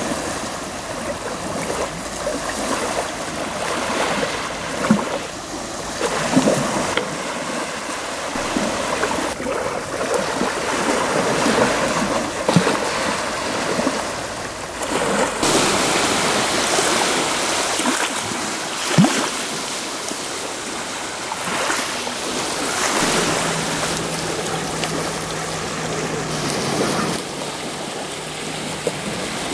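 Small waves lapping and washing over a pebble shore, the water's hiss rising and falling with sharp clicks of stones here and there. A low steady hum comes in for a few seconds near the end.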